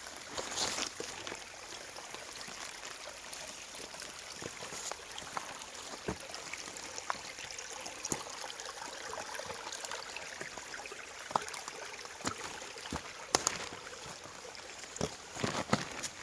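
A small stream trickling and running steadily over stones, with scattered sharp clicks and knocks throughout, several of them close together near the end.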